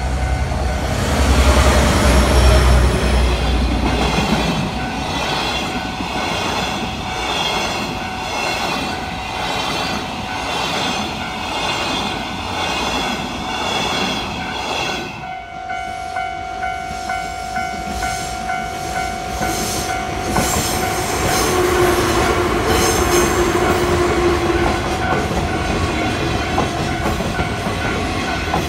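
Pair of DE10 diesel-hydraulic locomotives passing a level crossing with a long-rail work train, a heavy engine rumble loudest in the first few seconds. Wheels clatter rhythmically over rail joints as the loaded flat wagons roll past, with the crossing's warning bell ringing steadily throughout.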